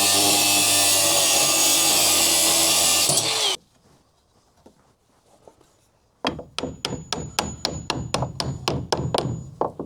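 Power saw cutting wood, running steadily and then cutting off sharply about three and a half seconds in. After a short near-silence, background music with a steady beat of about three strokes a second starts about six seconds in.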